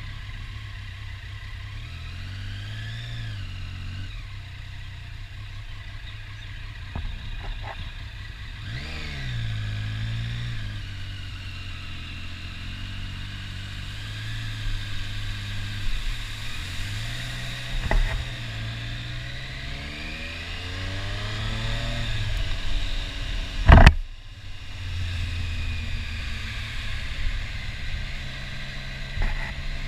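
Motorcycle engine pulling away and easing off in slow traffic, its pitch rising and falling several times as it accelerates and slows, over steady road and wind noise. A loud sharp thump near the end stands out above everything else.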